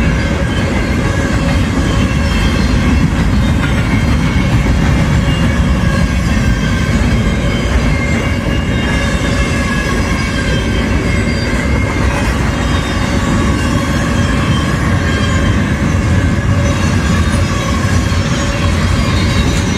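BNSF double-stack intermodal freight train, container-laden well cars rolling past close by with a steady, loud rumble of steel wheels on rail. Faint high, steady tones from the wheels sit above the rumble.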